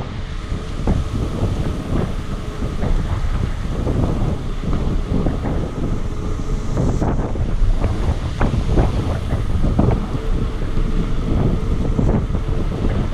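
Wind from riding a bicycle buffeting a GoPro camera's microphone: a loud, uneven low buffeting with irregular gusts.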